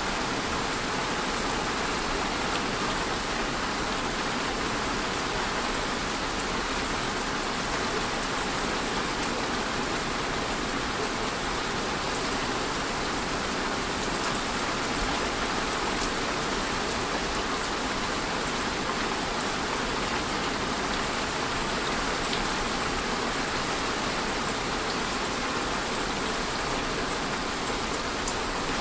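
Steady rain falling and pattering on a surface, an even hiss with scattered drop clicks.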